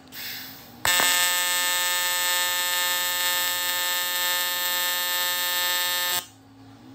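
AC TIG welding arc on aluminium buzzing steadily for about five seconds, starting about a second in and cutting off suddenly near the end. A short hiss comes just before the arc strikes.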